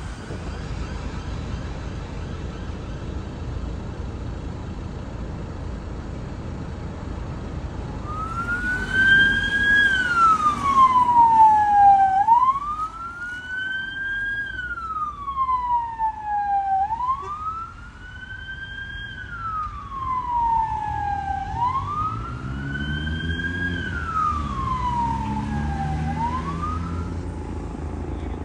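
Emergency vehicle siren on a slow wail, rising and falling four times, loudest on the first sweeps, over steady road traffic noise. For the first few seconds only the traffic noise is heard.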